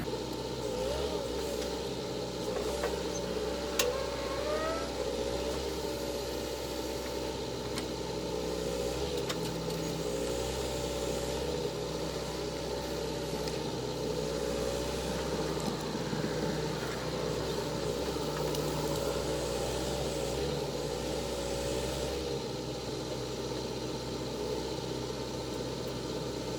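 John Deere 310 backhoe loader's diesel engine running steadily as the machine works, with a whine over it that wavers up and down in pitch. A single sharp knock about four seconds in.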